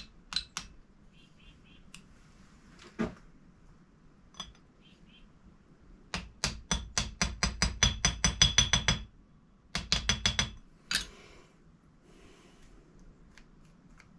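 Small hammer tapping a pin punch to drive a pin into a rifle bolt. The quick, light, ringing metal-on-metal taps come at about six a second in a run of some three seconds past the middle, with a shorter run just after. A few single clicks of the parts being handled come earlier.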